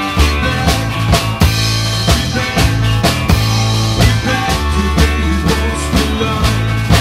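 Rock band music: a steady drum beat with a sustained bass line and other instruments playing over it.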